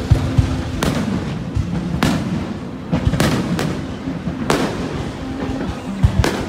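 Aerial fireworks shells bursting overhead, a sharp bang every second or so at uneven intervals. Music plays underneath.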